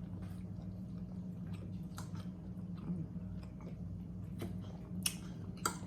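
A person chewing a mouthful of food close to the microphone, with a few short wet mouth clicks, over a steady low hum.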